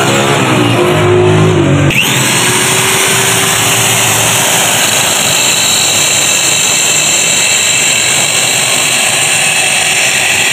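Handheld electric drill starts up about two seconds in and runs steadily, its bit grinding a hole through a sheet of glass. A low hum fills the first two seconds before it.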